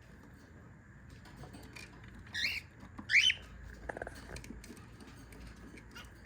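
Cockatiel giving two short high chirps, a little under a second apart, with light tapping and scratching around them.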